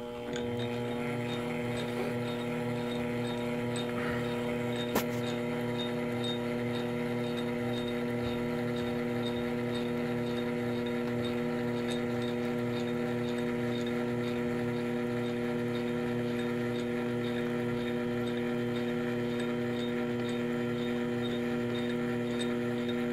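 Power feed motor on an X2 mini mill running with a steady hum as it drives the table along, with a single click about five seconds in.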